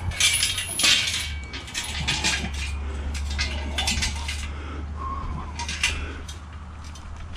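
Steel frame of a homemade mower utility bed clanking and rattling as it is wrestled and bent by hand, with a run of sharp metal knocks, the loudest near the start.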